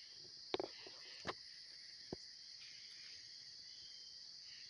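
Steady, high-pitched chorus of night insects, with three short knocks in the first two seconds, the first the loudest.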